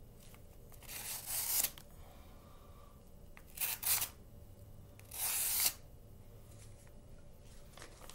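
Gerber Principle folding knife slicing through a sheet of paper, three separate short papery cuts a couple of seconds apart. The blade goes through cleanly because it is still very sharp without having been resharpened.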